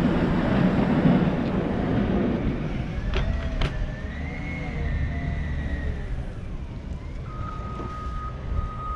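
Wind rushing on the microphone, then a heavy snow-plowing machine's engine rising and falling in pitch as it works. Near the end its reversing alarm starts beeping steadily.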